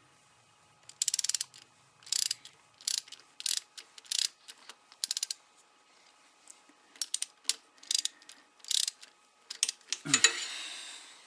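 Ratchet wrench clicking in short bursts, one stroke roughly every half to two-thirds of a second, as a bolt on a motorcycle engine cover is run down, with a louder knock near the end.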